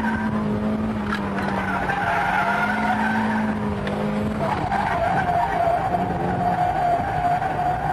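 A car's tyres squealing as it slides sideways through mountain-road bends in a drift, over the engine running hard. The squeal drops to a lower steady pitch about four and a half seconds in.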